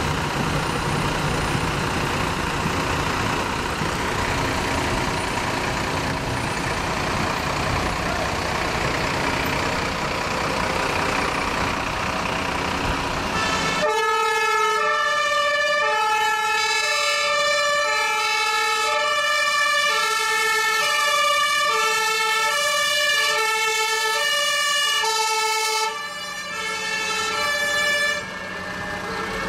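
Fire engines driving past: a steady rumble of truck engines and road noise, then, about halfway through, the sound changes abruptly to German two-tone sirens alternating between a high and a low note, with more than one horn sounding at once.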